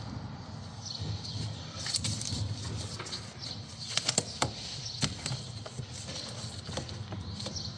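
Scattered light clicks and taps of intake parts being handled and fitted back in a car's engine bay, with a few sharper knocks about four to five seconds in.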